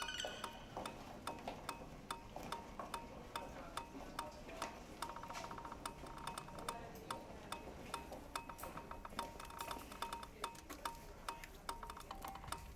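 Percussive music made from hospital equipment: sharp clicks and ticks in a loose rhythm over short electronic beeps on one high pitch, like a patient monitor, with a fast run of beeps about five seconds in.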